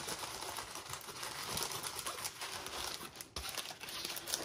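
Diamond Dotz diamond-painting canvas with its thick plastic cover sheet crinkling as it is rolled backwards by hand, a run of soft, irregular crackles.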